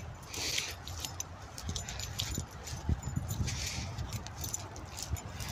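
Footsteps and rustling through grass, leaf litter and twigs, with a few louder brushing rustles and a low rumble of wind and handling on the microphone.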